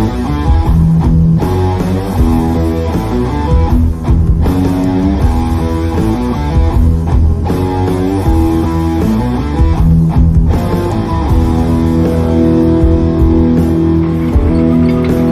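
Rock music led by guitars, with bass, playing loudly.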